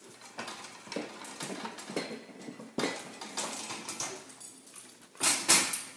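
White metal pet gate rattling and clanking as dogs push against its bars. It makes an uneven run of metallic clinks, with the loudest rattle near the end.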